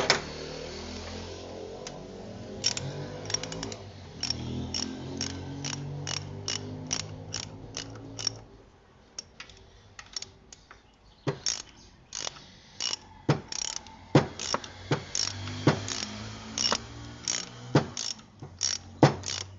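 Ratchet wrench clicking in a run of short strokes, about two clicks a second, as a bolt is turned to slacken the belt adjuster so a new drive belt can be fitted.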